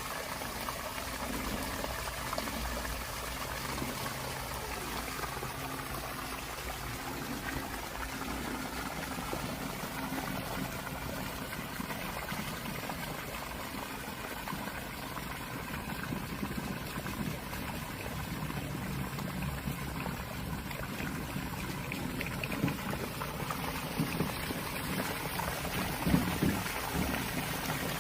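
Water pouring steadily out of an outdoor sump pump's discharge line, driven by a 1/3-horsepower pump, with two brief sharper splashes near the end.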